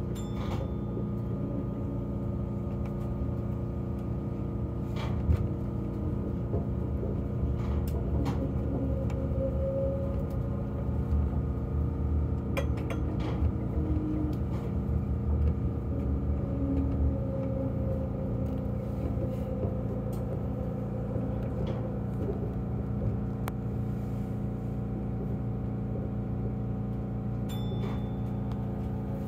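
Chiba Urban Monorail Type 0 suspended monorail running, heard inside the driver's cab: a steady mechanical hum with several steady motor tones, and a few sharp clicks, the loudest about five seconds in.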